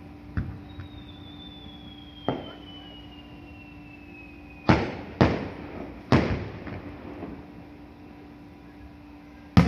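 Aerial fireworks bursting: six sharp bangs, three loud ones close together near the middle and the loudest right at the end. A long whistle falls slowly in pitch for about four seconds before the loud bangs, over a faint steady hum.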